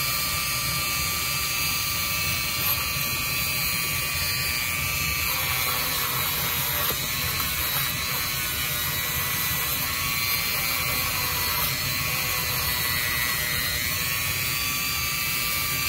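Small rotary tool running steadily at low speed, its spinning bit grinding at the plastic wheels of a model-railroad wheelset to take off moulding flash.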